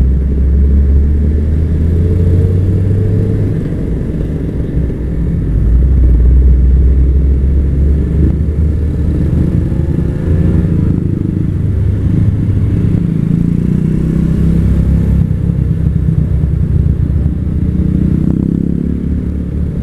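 Kawasaki Ninja RR 150 two-stroke single on its stock exhaust, running under way. The engine note rises and falls several times as the rider works the throttle.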